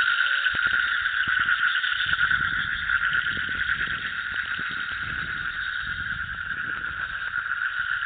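A dense chorus of frogs calling, a steady rapid trilling massed in the upper-middle pitches, with a low rumble underneath through the middle of the stretch.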